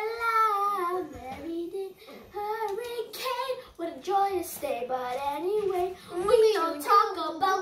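A young child singing in a high voice, the tune gliding up and down with only short breaks for breath.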